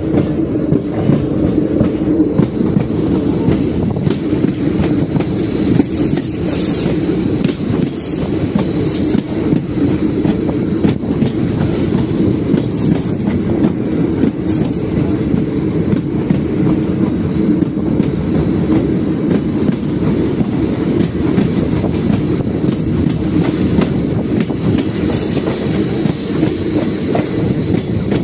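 A moving train riding along the track: a continuous low rumble of the wheels and carriages, with a faint steady high whine and brief high-pitched clicks and squeaks now and then.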